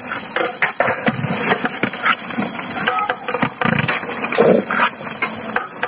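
Long metal spatula scraping and knocking irregularly against a large aluminium pot as a big batch of mutton curry is stirred, over a steady hiss from the hot curry.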